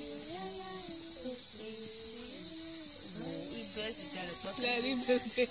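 Field recording of Central African pygmy music: a loud, steady chorus of crickets with several quiet voices underneath, singing held notes that step up and down in interlocking parts, growing busier near the end.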